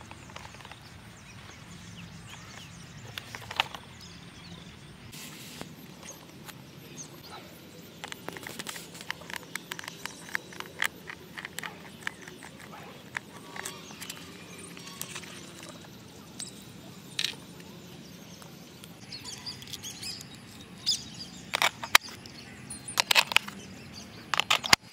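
Hands working a small screwdriver and the plastic battery cover of a toy stunt motorcycle: a run of light quick clicks and scrapes, then several sharper plastic clicks near the end as the compartment is opened and AA batteries are put in.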